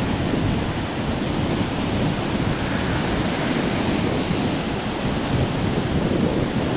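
Pacific Ocean surf breaking along a sandy beach, a steady rushing wash of noise, with wind on the microphone.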